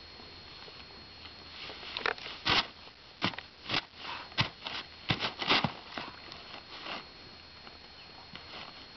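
Old plastic tarp crinkling and crackling as a horse noses and mouths at it, a cluster of sharp irregular crackles in the middle few seconds.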